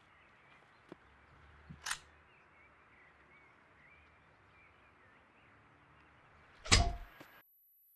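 A single loud gunshot near the end, cut off abruptly into silence, over a faint outdoor background with birds chirping.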